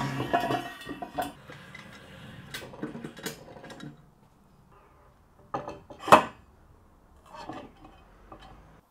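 Aluminium extrusion beams knocking and clinking against each other and the metal frame as they are handled and set in place. The knocks are irregular, with a cluster at the start and the sharpest clank about six seconds in.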